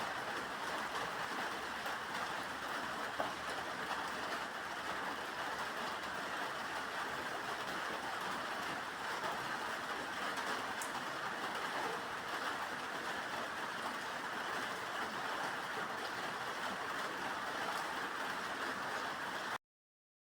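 Steady rain, an even hiss with no breaks, that cuts off suddenly near the end.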